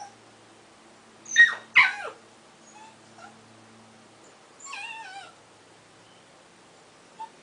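A dog whimpering: two short, high cries that slide down in pitch close together about a second and a half in, then a fainter, wavering whine around the five-second mark.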